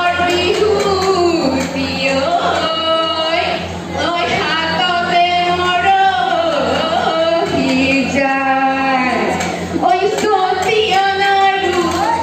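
Women singing a Jeng Bihu song into microphones through a hall PA, in long, bending, gliding melody lines. A steady low hum runs underneath.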